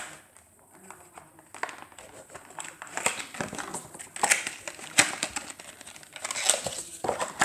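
Plastic blister pack and cardboard card of a diecast toy car being pulled and torn open by hand: irregular crinkling and crackling, sparse at first and busier from about a second and a half in.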